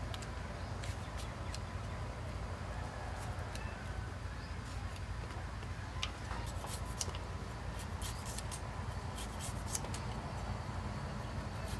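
Scissors snipping cherry tomatoes and lime into a clay mortar: scattered sharp clicks of the blades closing, more frequent in the second half, over a steady low hum.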